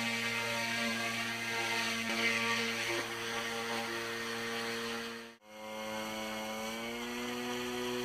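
Eachine E150 RC helicopter's electric motor and rotor whining steadily. It cuts off abruptly about five seconds in, then starts again and rises slightly in pitch as the rotor spools up.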